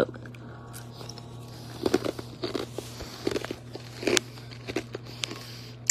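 Ice cubes being crunched between the teeth: a string of irregular sharp crunches.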